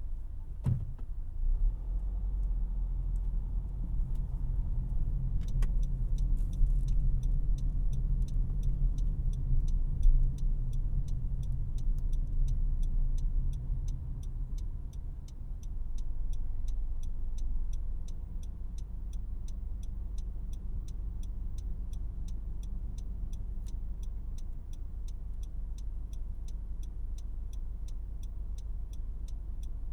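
Cabin sound of a 2018 Honda CR-V LX on the move: a steady low road and engine rumble. From about six seconds in, the turn-signal indicator ticks evenly, about two ticks a second.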